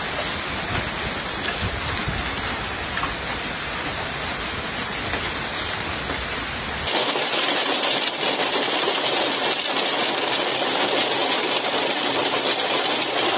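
Heavy rain pouring down in a steady, dense hiss. About seven seconds in it cuts abruptly to a second shot of the downpour with a thinner, brighter sound and less low rumble.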